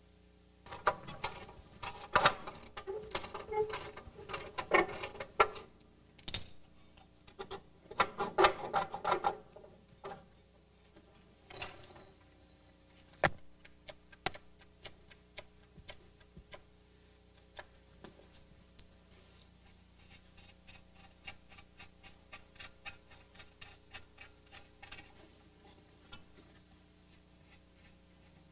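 Hand work on a car's front suspension: irregular metal clinks and rattles of tools and parts, a couple of sharp clicks, then a long run of quick even ticks, about four a second, from a ratchet wrench being turned.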